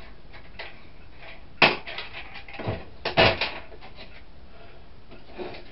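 A few sharp knocks and clatters of hard objects being handled and set down, the loudest about one and a half seconds in and a cluster around three seconds in.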